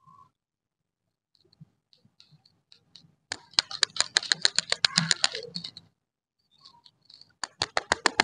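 Rapid run of sharp clicks, about nine a second, in two bursts: the first from about three seconds in, the second starting near the end, while wrapped stick lollipops are handled and moved about.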